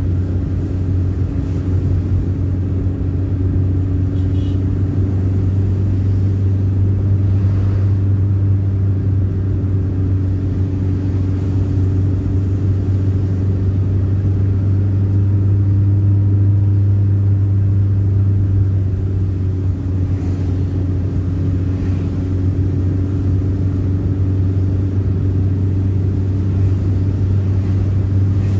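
Car engine and road noise heard from inside the cabin while driving: a steady low drone.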